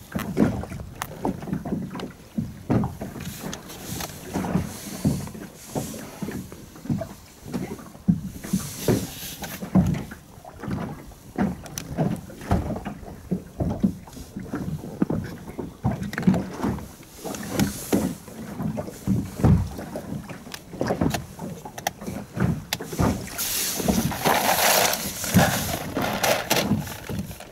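Small waves slapping irregularly against a boat's hull, a close run of low knocks. A louder hiss of wind comes near the end.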